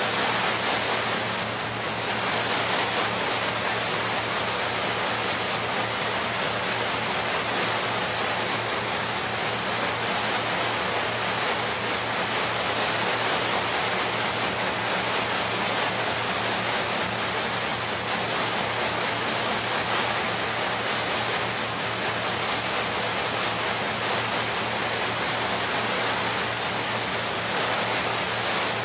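Steady rushing noise of wind and water on the deck of a moving ferry, with a low steady hum underneath.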